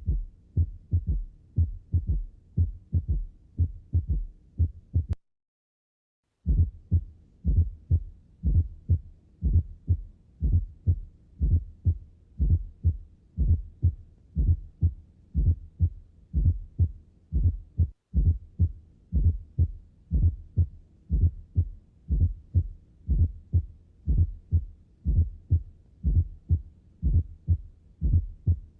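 Recorded human heart sounds: the first and second heart sounds ("lub-dub") repeating in a steady rhythm, low in pitch. The recording cuts out completely for about a second some five seconds in, then the beats resume.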